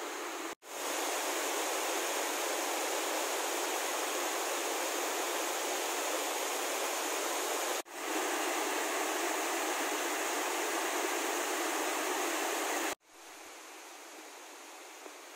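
Steady rushing of water over a small waterfall and rocky stream cascade. It cuts out abruptly twice. A couple of seconds before the end it gives way to a much fainter steady outdoor hiss.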